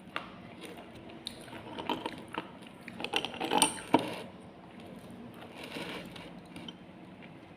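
Slate pencil being bitten and crunched between the teeth, close to the microphone: scattered hard, crisp cracks, with a loud cluster of crunches about three and a half to four seconds in.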